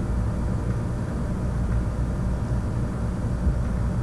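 A steady low rumble with no speech and no distinct events.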